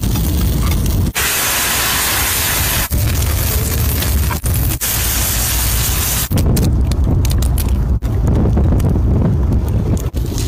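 Hissing and sizzling of stuffed crab shells cooking on a hot stone slab, in short pieces that cut off abruptly. Wind rumbles on the microphone through parts of it, strongest in the second half.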